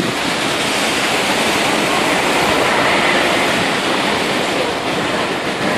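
Steady rush and churn of floodwater thrown up by vehicle wheels ploughing through a flooded street.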